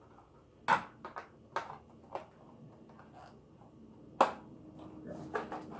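Kitchen handling noises: a scatter of sharp clicks and knocks as items are picked up and set down, with two louder knocks, one early and one a little past four seconds in. A faint steady hum comes in after the second loud knock.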